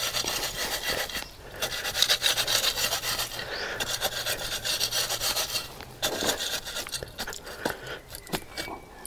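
Garden hoe scraping and rasping through dry soil in quick repeated strokes, with a couple of brief pauses and lighter scraping in the later part.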